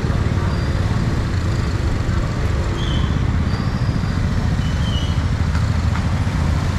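Street traffic: a steady din of motorbike and car engines.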